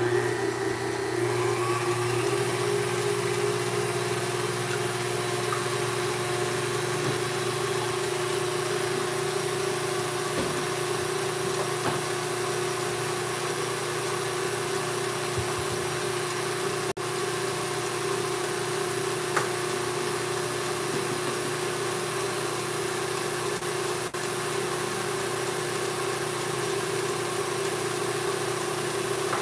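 KitchenAid stand mixer running with its whisk beating egg whites for Italian meringue while the sugar syrup heats. The motor hum spins up in the first second or so, then holds a steady pitch.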